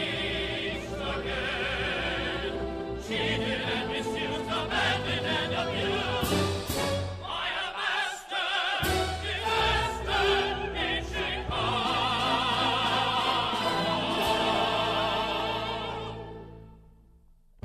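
Broadway cast-recording music: singers with wide vibrato in an operetta style over a full orchestra. It fades out in the last second or two.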